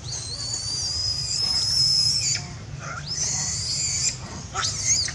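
Macaque giving high, thin distress cries: a long, steady wail of about two seconds that starts with an upward slide, then a shorter cry of about a second, and a brief one near the end. These are the sad pleading cries of a monkey asking for its baby back.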